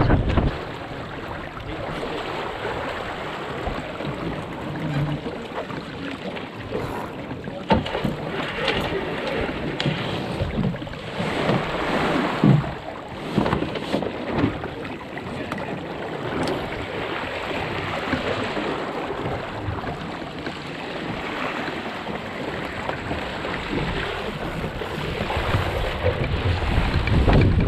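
Water rushing and splashing along the hull of a National 18 sailing dinghy under way, with wind buffeting the microphone, hardest at the start and near the end. A few sharp knocks of gear on the boat come through now and then.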